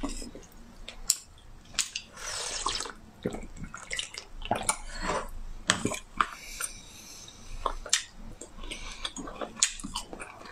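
Close-up wet mouth sounds of eating soft jelly candy: squelchy chewing and slurping, with sharp lip smacks and clicks scattered through.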